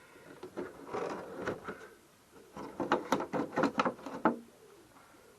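Rapid, irregular light clicks and rustles in two spells of a second or two each, with a short pause between them.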